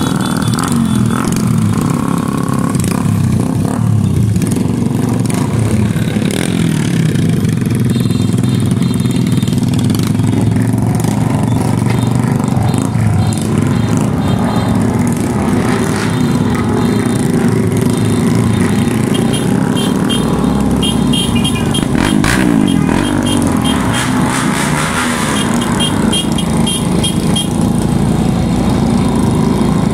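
Small motorcycle and scooter engines running steadily together in a group ride, heard from the seat of one of the scooters.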